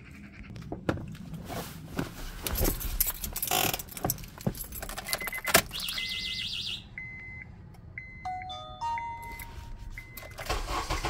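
Keys jangling and handling clicks, then the Honda CR-V's dashboard warning chimes: a run of short electronic beeps at a few different pitches. A low engine rumble sets in right at the end as the 2.4 engine is started without its drive belts.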